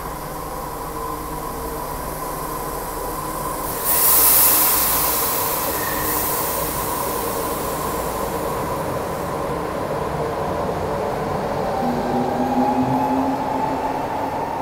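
Osaka Metro 80 series linear-induction-motor subway train pulling out of an underground station: a steady hum, then a sudden loud hiss of air about four seconds in, followed by the running noise of the cars moving off and a rising motor whine near the end.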